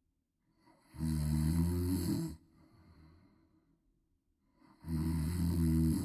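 A baby snoring: two loud, buzzing snores, each a little over a second long and about four seconds apart, with a faint breath after each.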